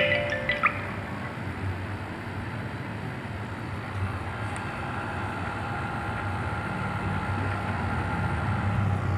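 Carrier 1/4 hp air conditioner running steadily during a freon recharge: a constant low hum from the compressor and fan, with faint steady tones above it. A chime-like tone fades out in the first second.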